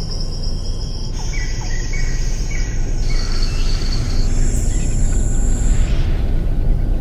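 Tropical forest ambience of insects and birds: high steady insect trilling whose layers change every second or two and fade near the end, with four short bird chirps in the first half, over a deep steady rumble.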